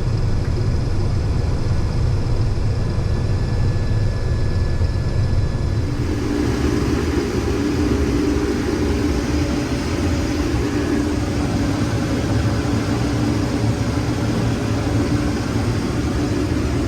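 Case IH 2388 combine running under harvest load, heard from inside its cab: a steady low engine and machine drone. About six seconds in, a second, higher hum joins and holds.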